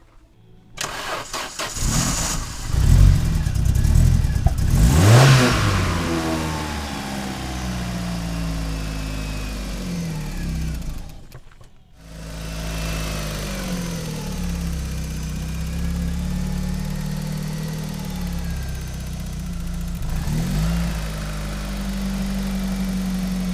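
Opel Calibra engine cranking and catching about a second in, on freshly replaced spark plug wires. It revs up and falls back to a steady idle. The sound drops out briefly around eleven seconds, then the engine idles again with a short rev near twenty seconds.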